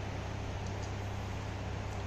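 Steady low hum and hiss of room noise, with a few faint crunches as a cat chews dry kibble.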